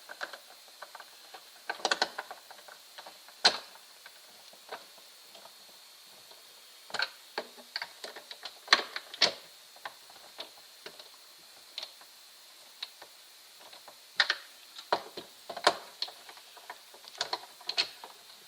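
Irregular sharp clicks and taps of screws, a screwdriver and plastic housing parts being handled while a sound bar is taken apart, coming singly and in short clusters, over a faint steady high tone.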